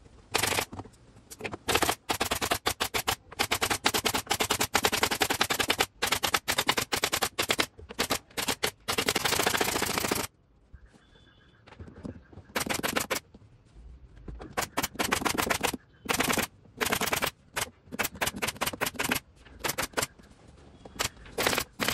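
Pneumatic upholstery staple gun driving staples into a wooden sofa frame in quick runs of several shots a second, with a pause of about two seconds near the middle.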